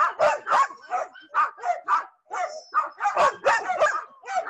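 Sled dogs barking and yipping over and over, several calls a second with a brief lull midway, as they are harnessed and hooked up before a run.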